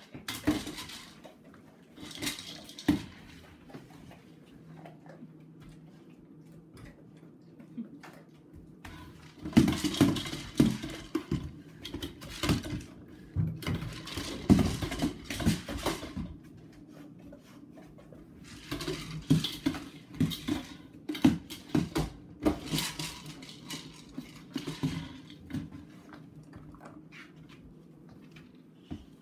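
Dry kibble rattling and clattering inside a hard plastic treat-dispensing toy as a dog noses and rolls it across the carpet. It comes in bursts, busiest from about ten to sixteen seconds in and again from about nineteen to twenty-five seconds.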